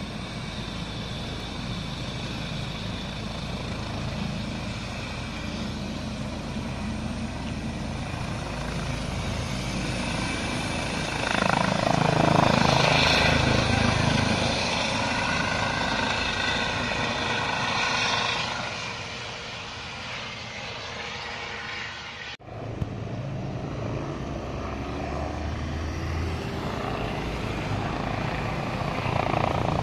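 Air ambulance helicopter running with its rotor turning. The sound swells loudly as it lifts off about a third of the way through, then eases off as it climbs away. After a sudden break about two-thirds through, the rotor sound returns and grows louder near the end.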